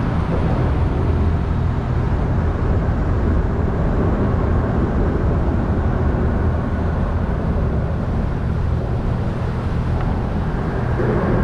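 Bass boat under way on its outboard motor: a steady engine drone mixed with rushing wind and water noise, holding an even level throughout.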